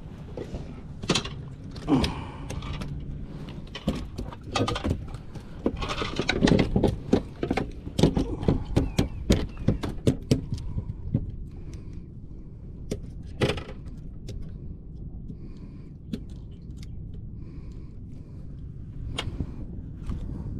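A small catfish flopping on a fiberglass boat deck: irregular sharp slaps and knocks, thick through the first half, then thinning out to a few near the end.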